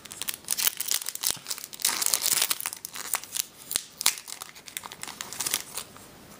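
Foil wrapper of a Yu-Gi-Oh! War of the Giants booster pack crinkling as it is torn open by hand: a dense run of crackles, busiest about two seconds in, dying away near the end.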